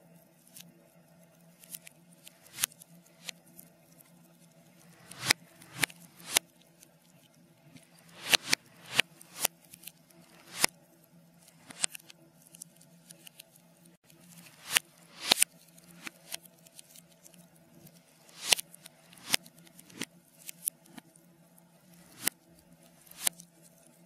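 Burning logs crackling and popping, played backwards: irregular sharp snaps, a few much louder than the rest, over a faint steady low hum.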